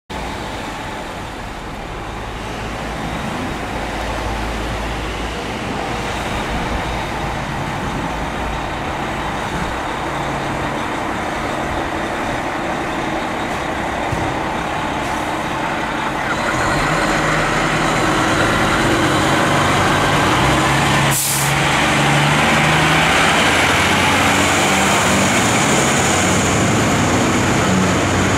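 Diesel engine of a 2009 Spartan Gladiator/4 Guys fire engine running as the truck pulls out and drives off. It gets louder about sixteen seconds in, with one sharp click about twenty-one seconds in.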